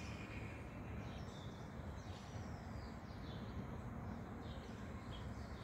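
Quiet outdoor background noise with a few faint, scattered bird chirps.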